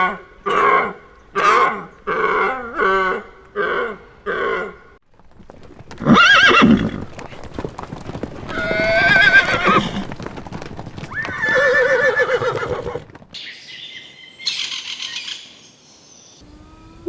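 Horse whinnying: three long neighs with a quavering pitch, after a run of about eight short, evenly spaced animal calls in the first few seconds.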